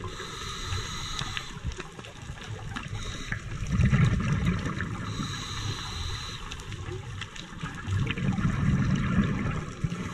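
Muffled underwater sound of an underwater camera: steady water hiss and bubbling, swelling into louder low surges about four seconds in and again near the end.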